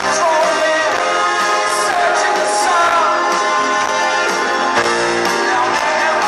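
Live pop-rock band playing with a male lead singer, heard over the concert PA from among the audience.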